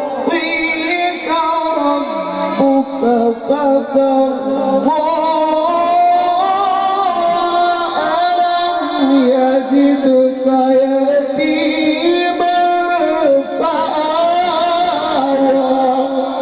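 A man's voice reciting the Quran in the melodic tajweed style (tilawat): long held, ornamented notes that waver and slide in pitch.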